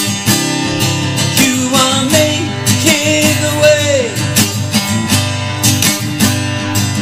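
Acoustic guitar strummed in a steady rhythm, backing a worship song. From about a second and a half in, a voice holds a wordless sung note that slides down and fades about four seconds in.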